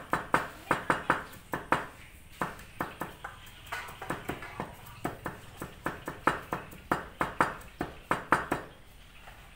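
Kitchen knife chopping garlic on a cutting board: quick, uneven strikes about three a second with short pauses, stopping near the end.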